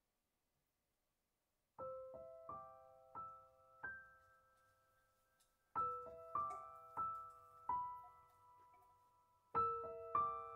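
Silence, then soft solo piano background music starts about two seconds in: single notes that ring and fade, in a short gentle phrase that starts again twice.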